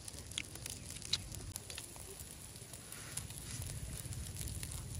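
Eating sounds from grilled chicken intestines: chewing, lip smacks and slurping, heard as scattered sharp clicks over a low steady rumble.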